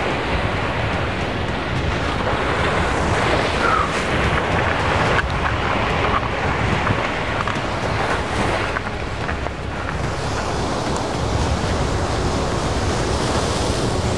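Surf breaking and washing against the rocks of a jetty, with wind buffeting the microphone: a steady rushing noise that swells and eases with the waves.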